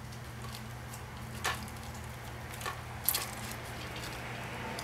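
Kitten's claws scratching and catching on the slats of a bamboo blind: a few sharp clicks and rattles, the loudest a quick cluster about three seconds in, over a steady low hum.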